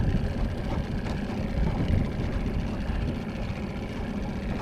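Fishing boat's motor running steadily at trolling speed, a low rumble.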